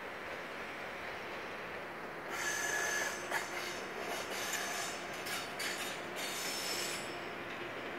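Passenger train hauled by an SBB Re 460 electric locomotive running through the station tracks over a steady rolling rumble. From about two seconds in, its wheels squeal in high tones over several seconds, with sharp clicks and knocks as they cross points.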